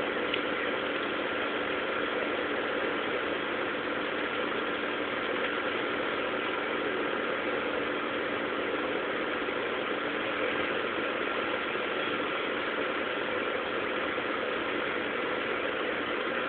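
Car engine idling steadily: a constant hum with a few unchanging tones and no revving.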